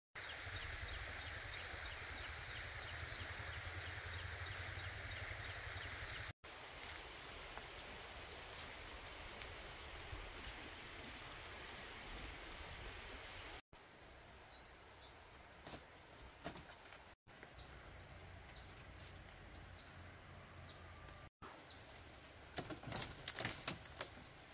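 Quiet countryside ambience: a steady outdoor hiss with scattered bird chirps, breaking off at several cuts. In the last few seconds, a run of knocks and rustles from footsteps on a bamboo floor and a plastic bag.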